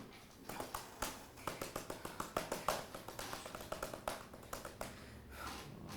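A quick, irregular run of light taps, several a second, that stops about five seconds in.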